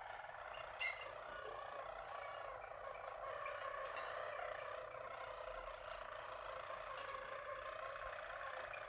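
Harzer Roller canaries singing a steady, low-pitched, unbroken song, with one brief louder, higher note about a second in.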